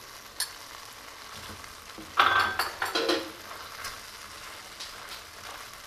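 Onion and spice mixture sizzling gently in a nonstick wok while it is stirred with a wooden spatula. A metal spoon clatters against the pan in a short burst about two seconds in.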